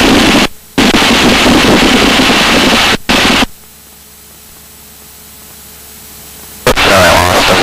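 Loud radio static hiss on the Cessna 172's cockpit radio audio, cutting off and back on abruptly a few times. For about three seconds in the middle it drops to a low steady hum, and the static comes back near the end.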